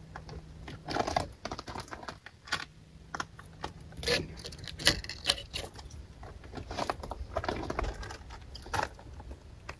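Irregular light crunching and clicking of loose gravel and small stones shifting underfoot, in scattered bursts several times.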